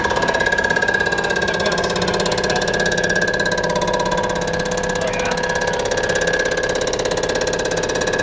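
A Rottler F69A CNC machine surfacing a cylinder head deck with its 14-inch CBN cutter head: a steady machine whine made of several held tones with a fast, even pulsing, unchanged throughout.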